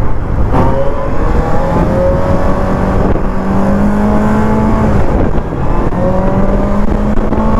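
QJ Motor SRK 600's 600 cc inline four-cylinder engine running under way, its pitch climbing slowly, dropping off briefly about five seconds in and then climbing again, under wind noise.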